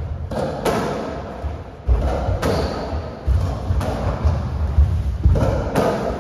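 Racketball rally on a squash court: the ball is struck by racquets and smacks off the court walls about ten times at an uneven pace, each hit echoing, over low thuds.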